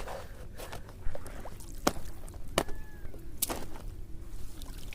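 A fishing net and a freshly caught fish being handled at the water: four or five sharp knocks and clicks over a noisy background.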